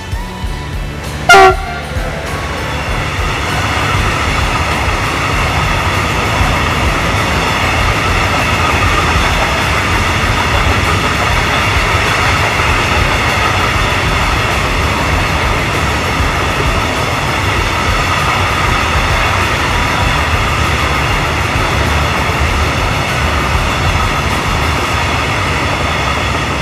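Freight train of hopper wagons hauled by a Raildox locomotive passing close by: a short, loud horn blast about a second in, then the steady rumble and wheel-on-rail noise of the wagons rolling past, which cuts off suddenly at the end.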